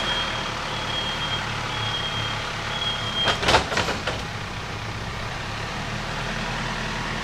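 An engine running steadily, with a backup alarm beeping about once a second for the first three seconds. About three and a half seconds in comes a short loud clatter, as wood chips are dumped into the plastic tote on the utility vehicle.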